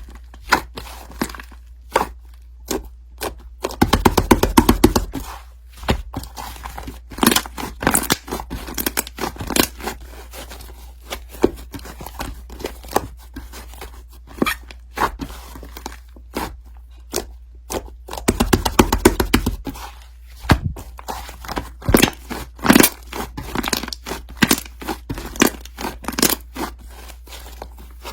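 Objects handled close to the microphone: scattered taps, knocks and scrapes, with two short stretches of rapid rustling clatter, about four seconds in and again near the middle.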